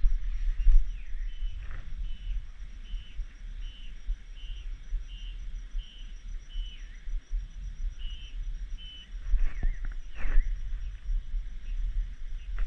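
Rainforest cicadas calling in a steady high drone. Over it, a repeated chirp sounds about twice a second and stops about nine seconds in, followed by a few short falling calls. A low rumble runs underneath.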